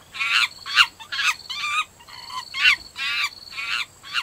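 Chimpanzee calling in a quick run of short, high-pitched calls, about two a second.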